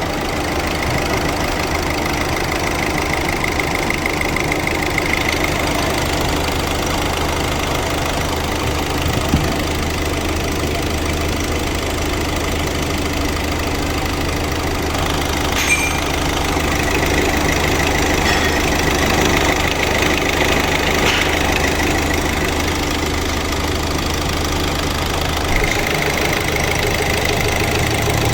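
Hyundai Accent 1.6 CRDi D4FB diesel engine idling steadily, freshly overhauled and running well. A few faint clicks are heard over it.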